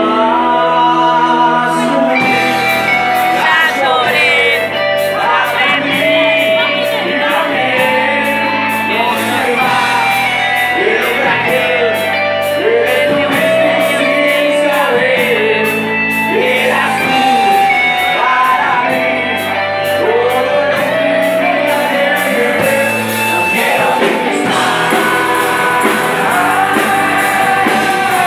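Live rock band playing electric guitars, bass and drums, with a singer. Held chords open it, and about two seconds in the drums come in with a fast, steady cymbal beat that runs on under the song.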